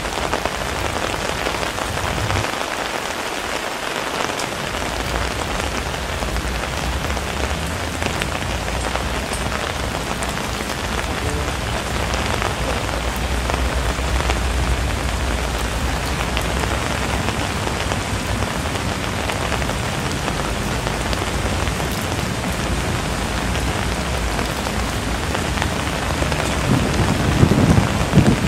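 Steady rain falling, a dense, even hiss with a low rumble beneath it. A louder low-pitched swell rises near the end.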